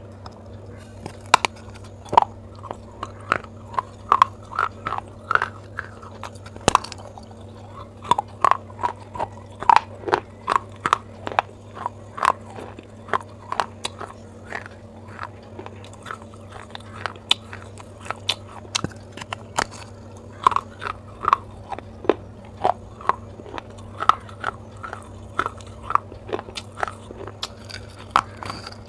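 Clay pot being bitten and chewed: a dense run of sharp crunches, one or two a second, as pieces of the fired clay break off between the teeth and are ground up.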